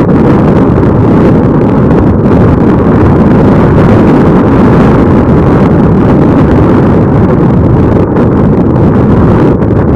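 Strong wind buffeting the microphone: a loud, continuous low rumble.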